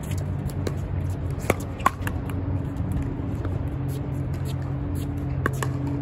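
Pickleball paddles striking the ball: sharp pops, the loudest two about a third of a second apart early in the rally and another near the end, with fainter pops between, over a steady low hum that grows in the second half.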